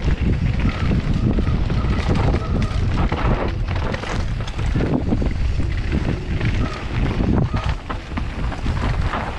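Heavy wind buffeting the microphone at speed, with frequent clattering knocks and rattles and a few short high squeaks.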